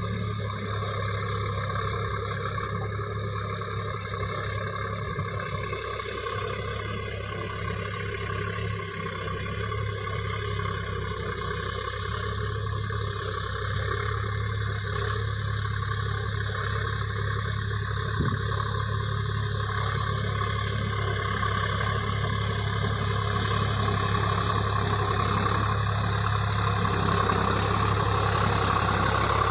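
Sonalika tractor's diesel engine running steadily, growing slightly louder toward the end, with a single sharp knock about eighteen seconds in.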